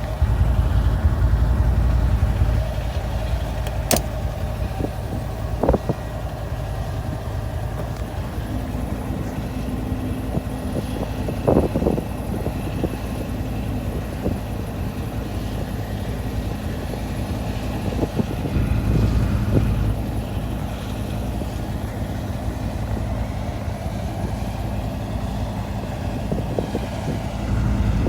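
A heavy vehicle engine running steadily with a low rumble. A steady hum joins it about eight seconds in, and a few sharp knocks sound about four, six and twelve seconds in.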